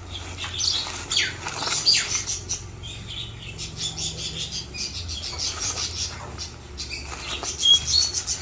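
Rustling and scratching as a tied reptile bag is worked open and a struggling green iguana is handled out of it: a dense, crackly run of short rustles.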